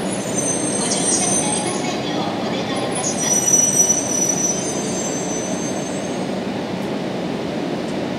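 E3-700 series Shinkansen train moving slowly alongside the platform, with a steady running noise and thin, high-pitched squeals coming and going in the first half, loudest about three and a half seconds in.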